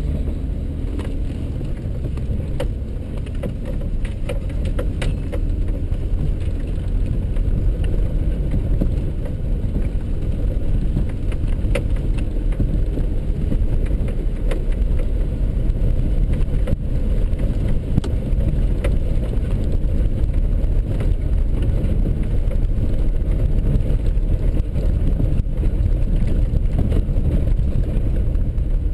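Steady low rumble of a 4x4's engine and tyres heard from inside the cab while it drives a rough dirt trail, with scattered sharp clicks and knocks over it.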